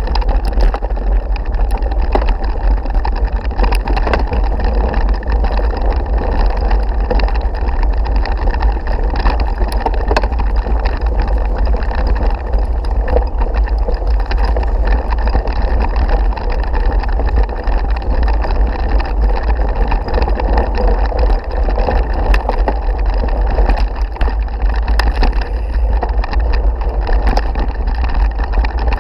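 Mountain bike ridden over a gravel track, heard from a camera mounted on the bike. Wind rumbles steadily on the microphone, under a continuous crunch and rattle from the tyres and the bike.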